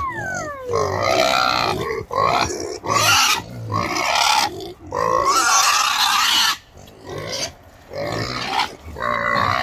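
A group of hungry piglets squealing and grunting loudly for feed: a falling squeal at the start, then a run of harsh calls with short breaks, quieter for a moment about two-thirds of the way through.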